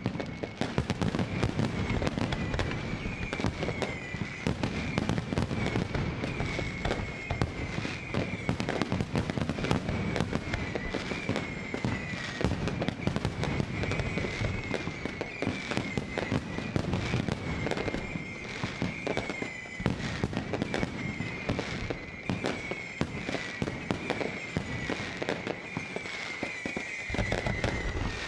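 Fireworks display going off in a dense, continuous barrage of rapid bangs and crackles, with a wavering high-pitched tone running through it. The low booms thin out near the end.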